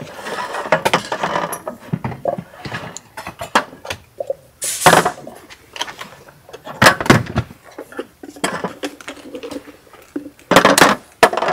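Camp cookware and utensils clinking and knocking as coffee is being made, with a soft rustle in the first second or so and a few louder clatters about five seconds in, about seven seconds in and near the end.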